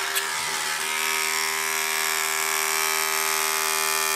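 The small DC motor of a Soda Can Robug toy kit spinning its off-center quarter-circle weight, a steady, loud buzz that shakes the soda-can body and wire legs. There is a light knock just after the start.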